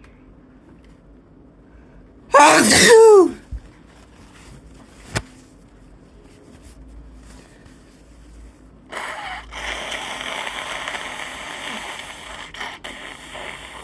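A person sneezes once, loudly, the voice dropping in pitch through the sneeze. Several seconds later comes a steady hissing noise lasting about four seconds, broken by a couple of clicks near its end.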